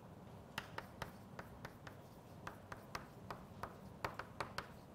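Chalk writing on a chalkboard: a quick, irregular run of short taps and scratches as the letters are stroked out, starting about half a second in.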